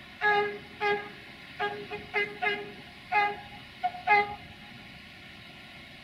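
Air horn of a Romanian 060-DA1 (LDE2100) diesel-electric locomotive sounded in a rapid, playful series of about nine short toots of one pitch over some four seconds, the last one the loudest.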